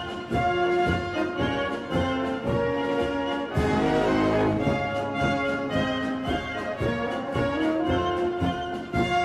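Orchestral music led by brass, with sustained chords over a regular beat and a crash about a third of the way in.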